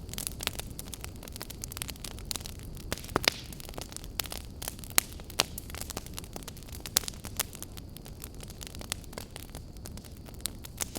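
Campfire burning, wood crackling and popping in irregular sharp snaps over a steady low rumble of the flames, with a few louder pops about three and five seconds in.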